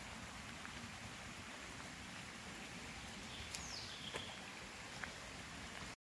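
Woodland ambience: a steady low rumble and hiss. A few sharp clicks come in the second half, and one short bird call, a quick falling whistle, comes about halfway through.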